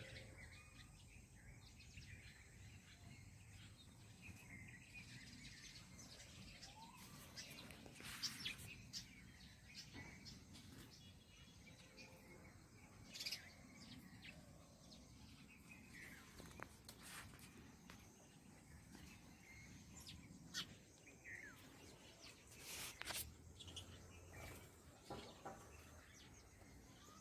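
Quiet outdoor ambience with faint scattered chirps and a few short, sharp clicks and rustles.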